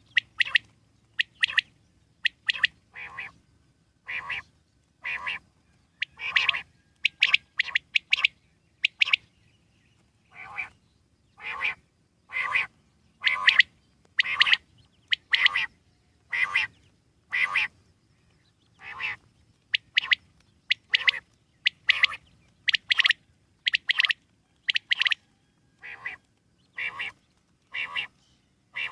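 Common quail calling: short calls repeated about once a second, some coming in quick groups of two or three.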